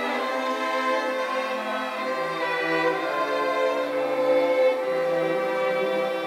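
School string orchestra playing: violins and cellos bowing held notes, with a lower part joining about two seconds in.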